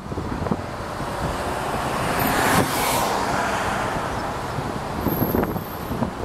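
Wind buffeting the microphone over the rushing roar of a Boeing 777's twin jet engines on approach. The roar swells for a second or so about two seconds in.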